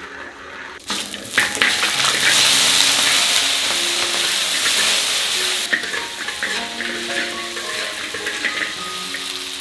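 Chopped pork trotters dropped into hot oil and caramelized sugar in a wok about a second in, setting off loud sizzling that eases a little after a few seconds as the pieces are stirred. Soft background music runs underneath.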